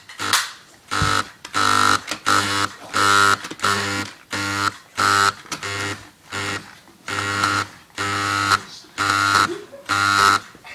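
Audi R8 alarm sounding: short pitched blasts repeating about twice a second, unevenly spaced and sometimes in pairs.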